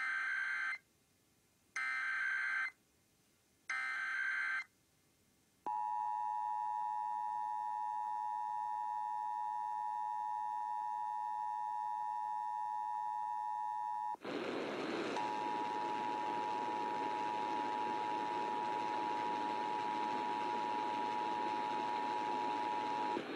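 Emergency Alert System test tones: three short bursts of the screechy SAME digital header, then the steady two-tone EAS attention signal. About 14 seconds in, it cuts abruptly to a hissy live-stream recording, where the attention signal sounds again for about eight seconds.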